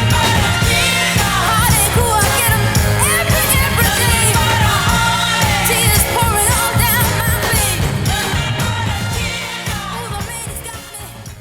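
1969 girl-group soul song: women's voices singing over a band with a steady beat, the whole recording fading out over its last few seconds.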